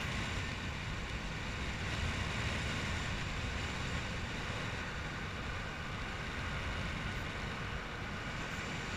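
Steady rush of wind on the microphone while descending under an open parachute canopy, even and unbroken.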